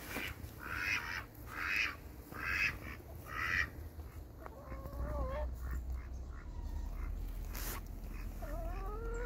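Domestic ducks quacking: four harsh quacks a little under a second apart, then quieter. A short wavering call about five seconds in and a rising call near the end come from other farm animals.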